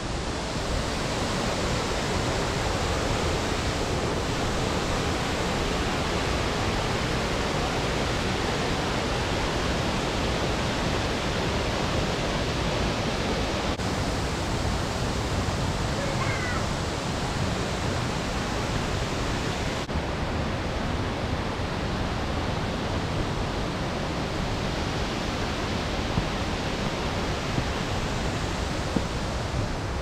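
Steady, even rush of water from a mountain waterfall and its stream.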